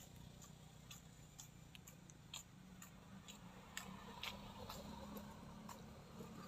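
Domestic cat crunching dry kibble: faint, irregular crisp clicks as it chews, a few each second.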